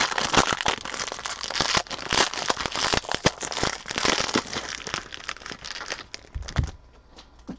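Foil trading-card pack wrapper crinkled and crumpled by hand in a dense run of crackles, stopping about seven seconds in.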